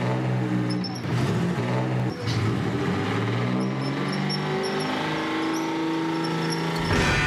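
Tracked tank's engine running as it drives past, its pitch shifting up and down, with short high squeaks in the middle.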